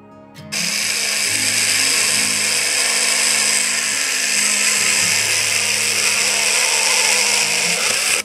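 Cordless battery mini chainsaw cutting through a log. It starts about half a second in, runs steadily with a high, buzzing whine, and cuts off suddenly near the end.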